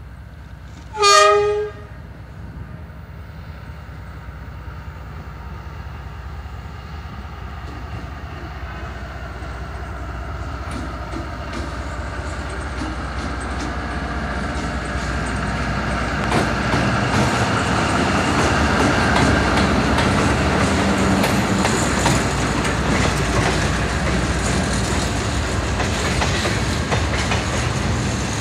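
D19Er diesel-electric locomotive gives one short horn blast about a second in, then its engine grows steadily louder as it approaches and passes hauling a freight train. The freight wagons follow, wheels clacking over the rail joints.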